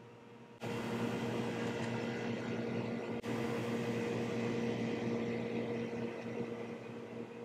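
Steady machine hum with a hiss, like a motor or fan running, which starts suddenly under a second in, drops out for a moment about three seconds in and eases off near the end.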